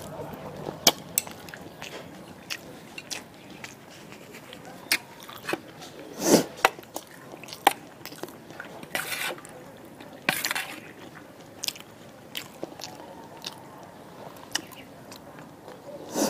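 Close-miked eating: a person biting and chewing a mouthful of spicy noodles with vegetables, with many sharp mouth clicks and a few longer, louder noisy sounds around the middle.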